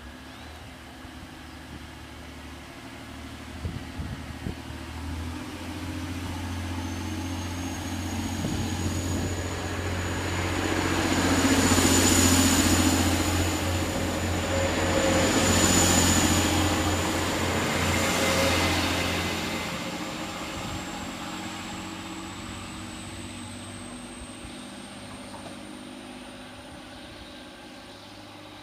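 TransPennine Express Class 185 diesel multiple unit running past, its diesel engines droning with wheel-on-rail noise. It is loudest about twelve and sixteen seconds in and dies away over the last several seconds. A thin high whine rises slowly through most of it.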